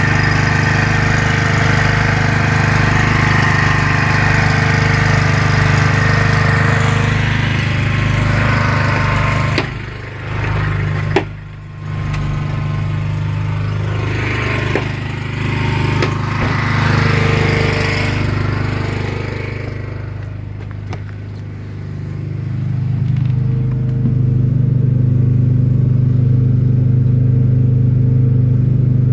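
Portable generator's small air-cooled engine running steadily with a constant hum. There are a couple of sharp knocks about ten seconds in.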